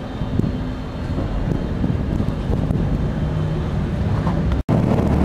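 Fast ferry's engines running with a steady low rumble, wind buffeting the microphone. A brief dropout near the end, after which the engine hum comes in louder and steadier.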